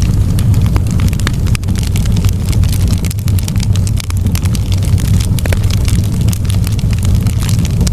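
Wood fire crackling in a fireplace: many irregular sharp pops and snaps over a steady low rumble of the flames.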